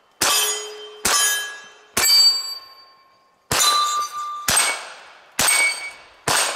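Seven 9mm gunshots about a second apart, with a longer pause before the fourth. Each is followed by the ringing of a struck steel target plate, and the ring's pitch changes from plate to plate.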